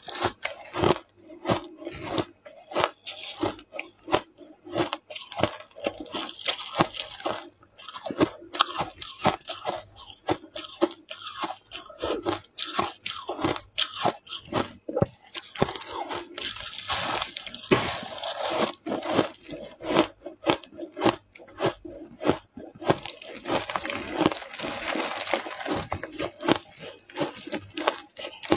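Frozen ice chunks coated in matcha powder being bitten and chewed: a continuous run of sharp, brittle crunches, thickening into denser crackling crunches a little past the middle and again later on.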